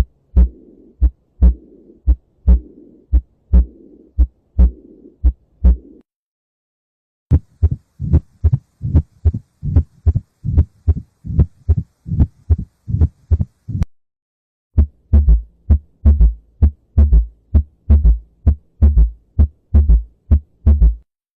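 Recorded heart sounds in three short runs separated by brief silences. The first run is lub-dub beats about once a second with a continuous whooshing between them, a heart murmur, a sign of abnormal blood flow. The second run is a faster, cleaner run of beats, and the last is beats over a low steady hum.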